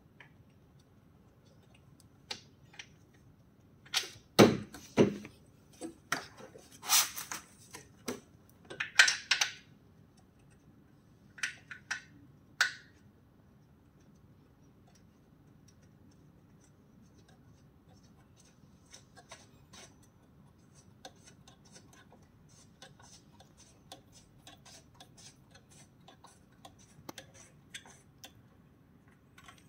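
Hands handling the steel upright and handlebar joint of a folding treadmill during assembly: scattered clicks and knocks, the loudest about four to five seconds in, then a long run of light, quick ticks in the second half.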